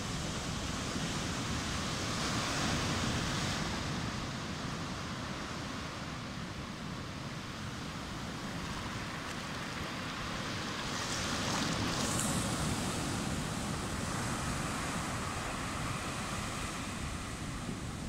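Ocean surf breaking on rocks and washing up a sandy beach, a steady rushing that swells twice. The second swell is brighter and hissier, as a wash of foam runs up the sand close by.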